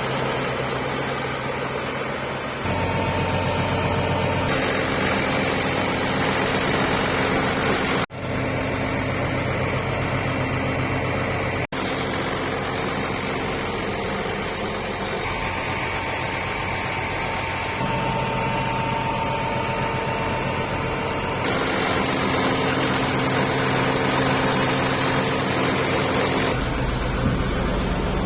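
EBRO H 135 DT tractor's Nissan diesel engine running, at idle and at other steady speeds. The engine note shifts abruptly several times.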